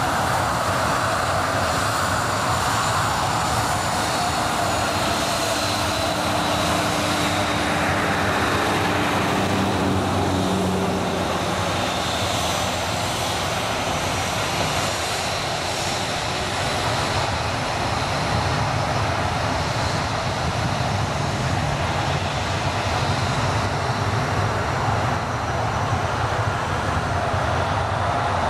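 Boeing 737-800's CFM56 turbofan engines running at low taxi power: a steady jet rumble with a thin high whine over it.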